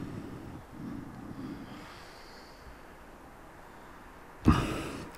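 A person's sharp, loud breath close to the camcorder's microphone about four and a half seconds in, over a quiet background.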